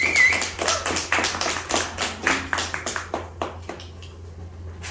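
Small audience clapping, individual claps that thin out and die away about three seconds in, with a brief high whistle at the start.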